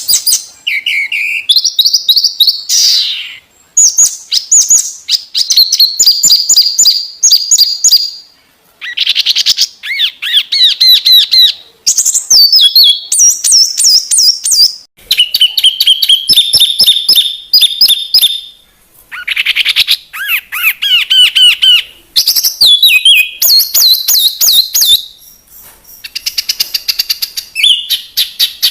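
Bird song played as a masteran training recording: loud, varied phrases of rapid trills, chirps and sharp staccato notes, each lasting a few seconds with short pauses between them.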